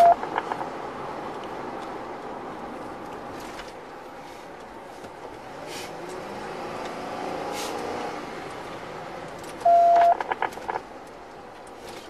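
Patrol car driving, a steady engine and road noise heard from inside the cabin. Near the end comes a short, loud beep from the police radio, followed by a few clicks.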